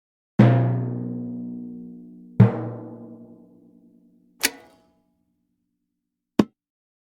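A run of single percussion hits. First come two deep, pitched drum strikes about two seconds apart, each ringing out slowly; then, near the middle and near the end, two short dry hits: a brief clack and a sharp knock.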